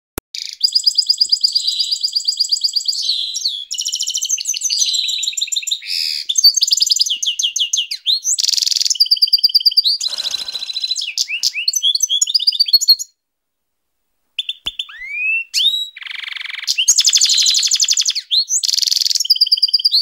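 Canary singing: fast, rattling trills and rolls following one another almost without a break. There is a pause of about a second and a half past the middle, then a few rising whistled notes before the trills resume.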